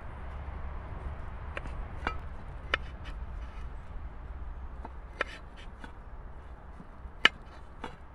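Kitchen knife chopping cooked chiton meat on a metal pot lid: about ten sharp, irregular knocks of the blade against the metal, the loudest about seven seconds in.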